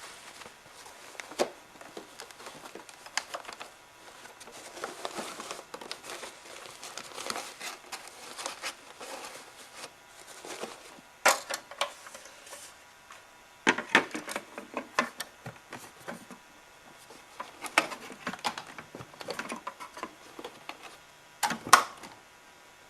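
Vacuum cleaner parts being handled by hand: irregular rustling with scattered sharp clicks and knocks, in clusters about halfway through, around two-thirds in, and loudest near the end. This is typical of taking out and fitting the bag and filter of an upright vacuum.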